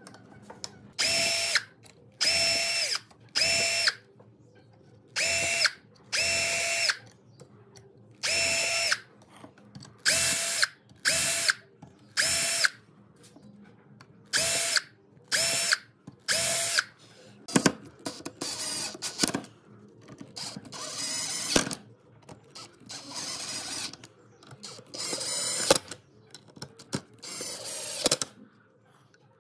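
Electric drill running in about a dozen short bursts, each a steady motor whine that starts and stops sharply. In the second half come longer, rougher runs.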